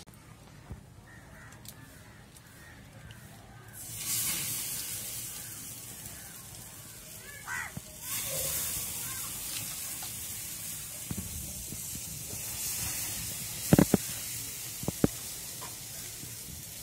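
Marinated fish sizzling on a hot wire grill over a wood fire: a hiss that starts suddenly about four seconds in and swells again about eight seconds in as more fish goes on, then carries on steadily. A few sharp knocks near the end.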